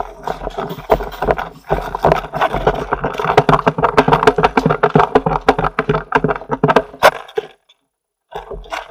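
Airsoft replica gun firing long rapid bursts: a fast stream of sharp clicks over a steady motor hum, stopping about seven and a half seconds in.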